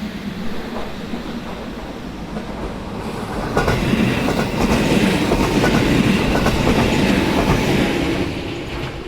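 Electric train passing close by, its wheels clattering over the rail joints. The sound builds about three and a half seconds in, stays at its loudest for a few seconds, and eases toward the end.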